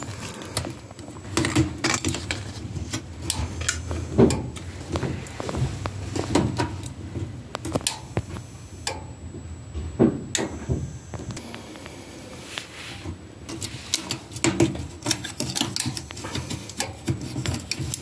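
Irregular clicks, taps and knocks from handling around the open furnace cabinet and its wiring, over a low steady hum.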